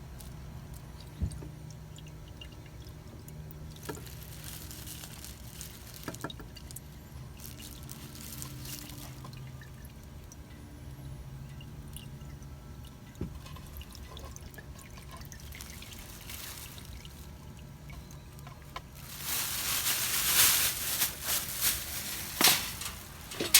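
Diesel fuel pouring and dripping from a Racor fuel filter being removed. It is faint at first and becomes a louder rush near the end, over a steady low hum.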